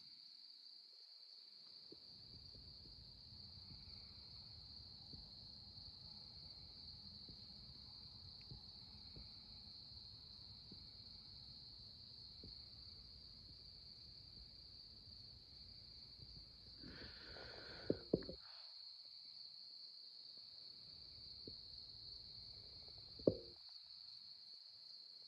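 Faint, steady high-pitched chirring of crickets and other night insects. A few soft rustles and clicks cut in: two close together about eighteen seconds in, and one about twenty-three seconds in.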